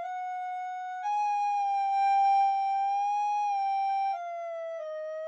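A single flute-like wind instrument playing a slow original tune of long held notes. It rises to one long note held about three seconds, then steps down twice near the end.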